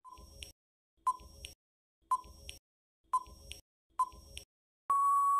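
Quiz countdown-timer sound effect: five short beeping ticks about one a second, then a longer steady beep near the end that marks time up.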